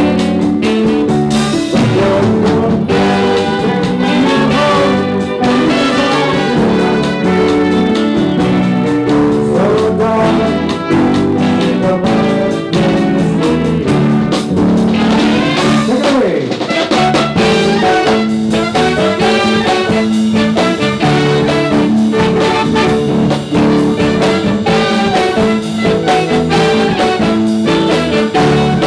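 Instrumental break in a live jazz-pop number: a brass-like lead melody over chords and a steady beat from a stage keyboard, with no singing.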